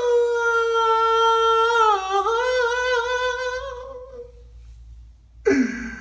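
A man's high falsetto wail, hummed more than sung, as mock crying: one long note held steady for about two seconds, then wavering and fading out. A lower cry starts near the end.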